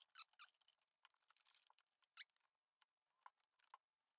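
Near silence, with a few faint small clicks and scratchy rustles of parts being handled.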